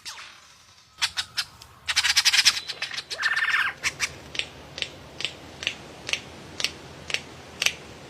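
A bird giving harsh squawking calls: a dense burst of chatter, then a run of short sharp calls at about two a second.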